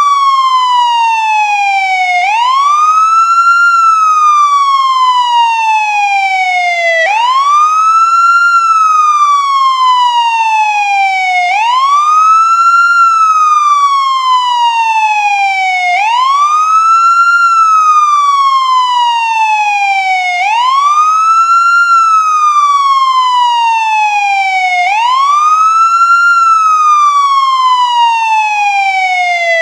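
American ambulance siren sounding its wail: the pitch sweeps up quickly, then slides slowly back down, over and over, about once every four and a half seconds.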